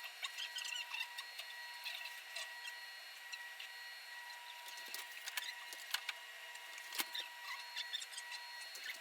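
Scattered light clicks and scratchy rustling, like small household items being handled, over faint steady high-pitched tones.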